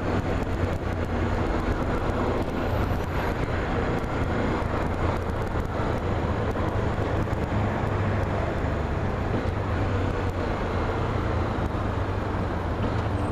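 Steady vehicle noise: a constant low rumble with a broad hiss over it, holding level throughout.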